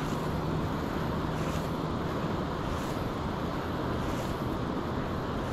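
Steady rushing noise of flowing stream water mixed with wind on the microphone, with a faint high hiss recurring about every second and a half.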